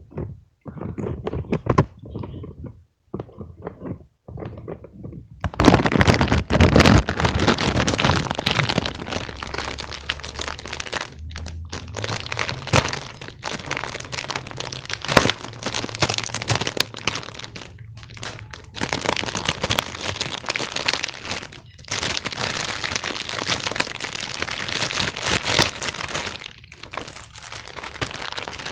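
Scattered light taps and knocks, then from about five seconds in a dense, close-up crinkling and crackling of something handled by hand, pausing briefly a few times.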